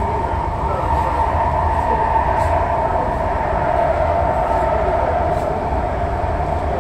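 Metro train running through a tunnel, heard from inside the train: a steady rumble with a droning hum.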